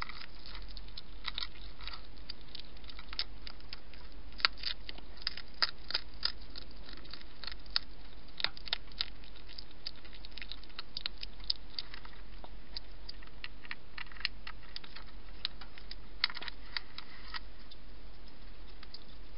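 European hedgehog crunching food from a dish: irregular sharp crunching bites, thinning out in the last few seconds.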